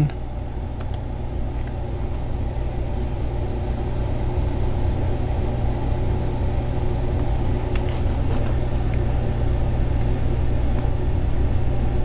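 A steady low mechanical hum and rumble that slowly grows louder, with a few faint clicks about eight seconds in.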